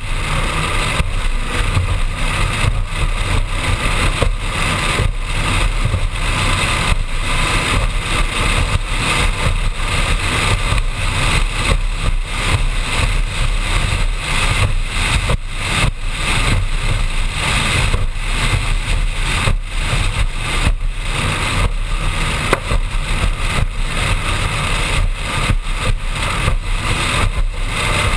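Offshore performance powerboat running at speed on open water: steady engine noise under a loud rush of wind and water, with irregular buffeting throughout.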